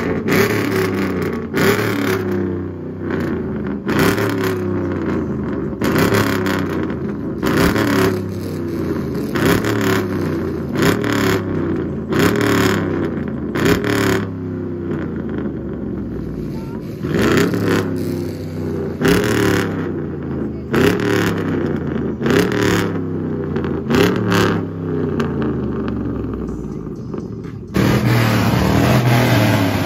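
Lifted Chevrolet SUV's loud exhaust being revved again and again, about once a second, each blip rising and falling in pitch. Near the end it cuts abruptly to a louder, steadier sound.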